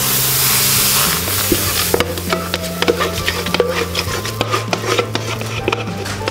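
Martabak batter sizzling as it is poured into a hot, thick martabak pan: a hiss in the first second or so, then scattered crackling. Background music with steady bass notes plays underneath.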